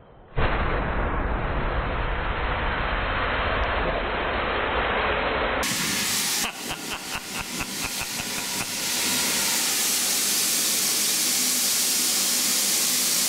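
Steady loud hiss of compressed air blowing through a hose into a smoking microwave oven, with a rapid pulsing for a couple of seconds in the middle.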